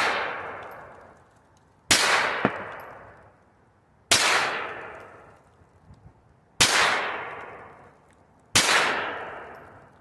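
Sub-gun fired in slow, deliberate single shots, about one every two seconds: four sharp shots, each followed by a long echoing tail, with the tail of a shot fired just before also fading away at the start.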